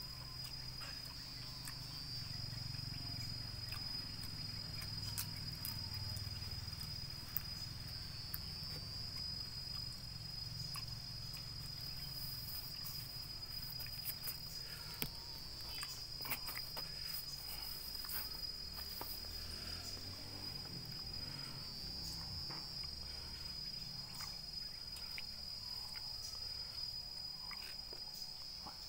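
Steady, high-pitched drone of insects calling outdoors, with a few scattered faint clicks and taps.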